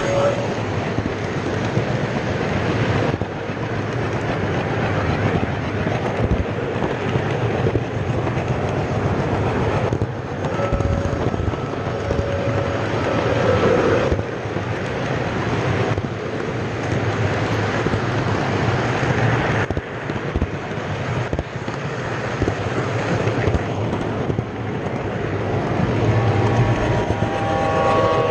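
O scale model train rolling around the track: a steady rumble and clatter of its wheels and motor on the rails. Faint short tones sound about eleven seconds in and again near the end.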